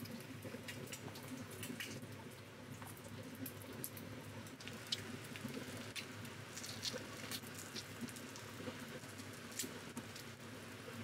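Quiet kitchen food-prep sounds: scattered small clicks, taps and wet crackles, first of chopsticks lifting kimchi from a glass jar, then of food simmering in a pan on the hob.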